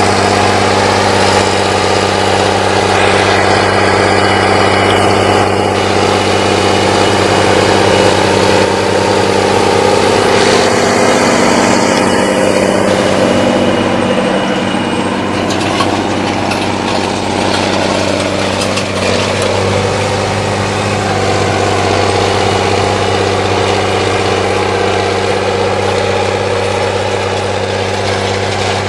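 Rába 245 articulated tractor's six-cylinder diesel engine running steadily under load while pulling a cultivator through the soil. The note wavers briefly about halfway through.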